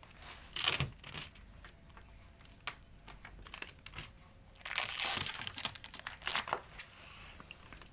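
Packaging being handled, crinkling and rustling in bursts. There is a short burst just under a second in and a longer, louder stretch from about five to six and a half seconds in, with small clicks and knocks between.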